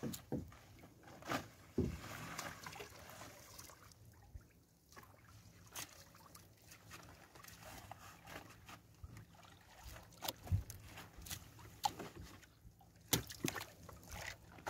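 Wet fishing net being hauled hand over hand into an outrigger boat: water dripping and splashing off the mesh, with scattered sharp knocks and rustles as the net and hands strike the hull.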